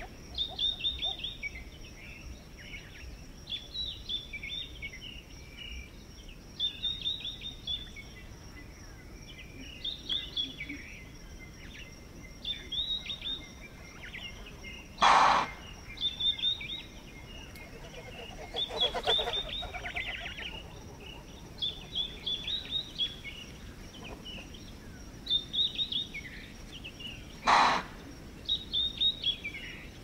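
Impala alarm calls: two loud, explosive snorting chuffs, one about halfway through and another near the end, the warning an impala gives on detecting a predator. Between them, songbirds keep calling in short repeated phrases over a steady high whine.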